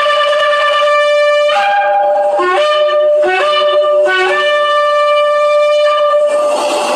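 Shofar being blown: a long held note that steps briefly up to a higher pitch, a few short broken notes, then another long held note that stops near the end.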